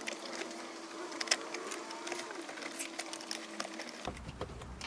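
Light plastic clicks and rattles, many small scattered ones, from a 1999 Toyota 4Runner's instrument cluster as it is eased out of the dash and its wiring connectors are worked loose. Some low rumbling of handling joins in about four seconds in.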